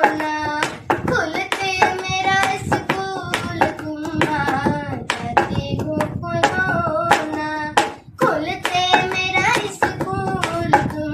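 A child singing a song in a clear, held voice over a steady beat struck by hand, several sharp strokes a second.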